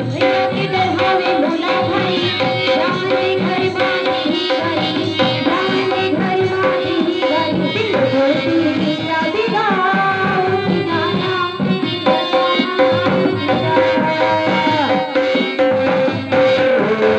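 Live Indian folk music: a hand drum playing a busy rhythm under a melody, over a steady held note.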